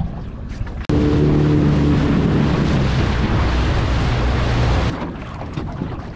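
Small outboard motor running at speed on a small aluminium boat, with a steady engine drone over wind and water rush. It starts abruptly about a second in and stops abruptly near the end, leaving wind and water noise.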